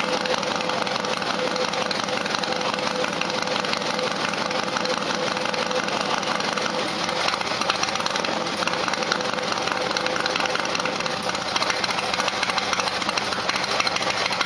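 Harley-Davidson motorcycle V-twin engine idling steadily.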